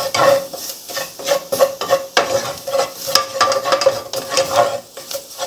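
Wooden spatula stirring and scraping quickly around a nonstick pot, with chopped garlic and green onions sizzling in a bacon-fat and flour roux.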